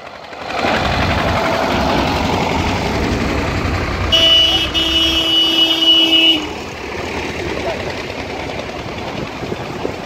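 Diesel engine of a red Zetor tractor running as it drives close past, the sound swelling in the first second. About four seconds in a horn sounds, a short toot then a longer blast of about two seconds.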